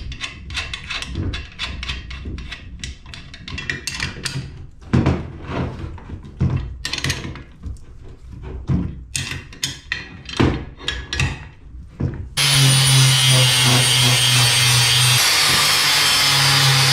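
Steel bolts being turned and tightened with a spanner and screwdriver: a run of irregular metallic clicks and clinks. About twelve seconds in, an angle grinder starts cutting steel plate with a loud, steady grinding that drowns everything else.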